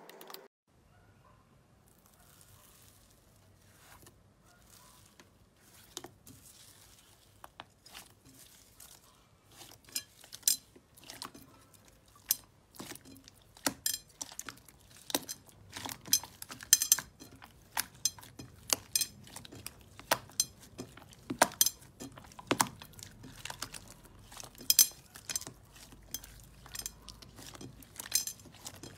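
Hands kneading and squeezing slime in a glass bowl, giving irregular sharp clicks and pops as pockets of trapped air burst. The clicks are sparse at first and come thick and fast from about ten seconds in.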